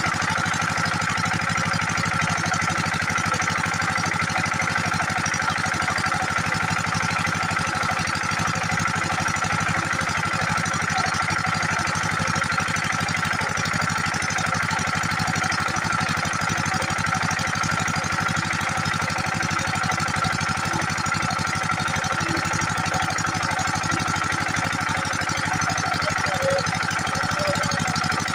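An 8 hp diesel engine driving a water pump set, running steadily at an even speed.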